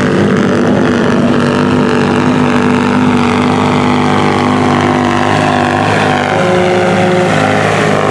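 Engine of a lifted Dodge Ram 1500 on oversized tyres running steadily as the truck wades through shallow water, with water splashing and churning around the wheels.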